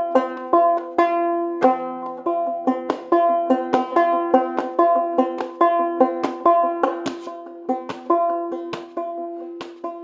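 Five-string banjo played clawhammer style in open G tuning: a quick run of sharply struck notes and brushes over a ringing drone, worked in drop-thumb rhythm with a thumb stroke, a pause, then the thumb dropping to an inner string.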